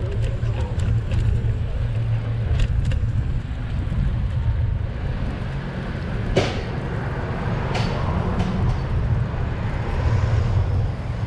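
Steady low rumble of wind and road noise on a camera riding a bicycle along a city street, with car traffic, and a couple of sharp knocks about six and eight seconds in.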